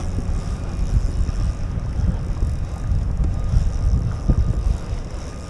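Wind buffeting the microphone, a steady uneven low rumble, while the kayak is out on open water.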